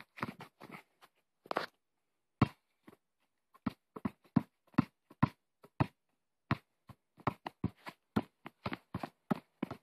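Basketball bouncing and thudding on a hard outdoor court as a toddler knocks it along, in irregular single knocks roughly every half second, with a short lull around the third second.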